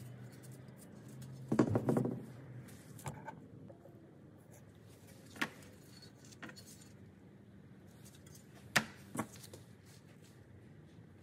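Metal fuel sending unit parts being handled on a workbench: a short metallic clatter about two seconds in, then a few separate light taps and clicks.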